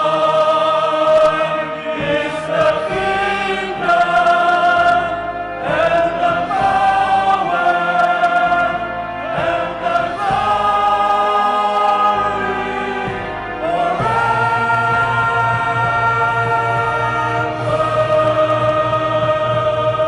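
Male choir singing a slow sacred song in long held chords that shift every second or two, amplified through handheld microphones. A low steady note joins about fourteen seconds in.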